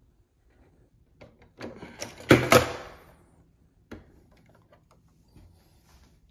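Hard plastic Lego pieces clicking and knocking as a large brick-built gunship model is set down and pressed onto its Lego stand. The loudest clatter comes about two seconds in, and there is a single sharper click about a second later.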